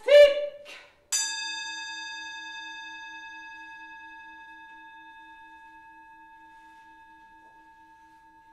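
A mezzo-soprano's sung note ends, then about a second in a single bell-like metal tone is struck and rings on, slowly dying away, with a low pulsing hum beneath it.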